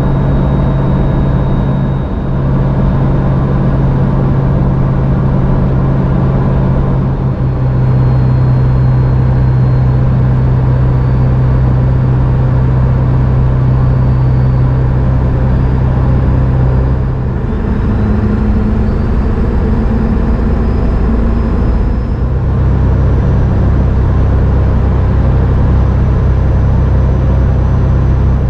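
Cab interior of a 2000 Ford F350 pickup at highway speed: steady drone of its 7.3L turbo diesel engine mixed with tyre and road noise. About two-thirds through, the drone rises in pitch for a few seconds, then settles back.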